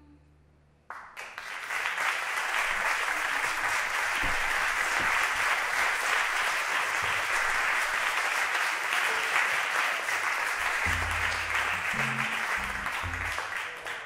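Audience applauding, starting suddenly about a second in and holding steady. Near the end, a few low plucked cello notes sound beneath it.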